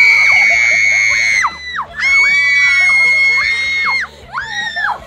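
Children screaming in long, high-pitched shrieks. The first is held about a second and a half, the second about two seconds, and a shorter one comes near the end.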